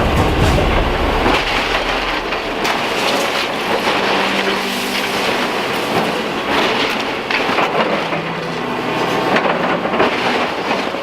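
Heavy demolition machinery working on a house teardown: an engine running under a steady din, with repeated metallic clanking, squeals and sharp knocks of breaking material.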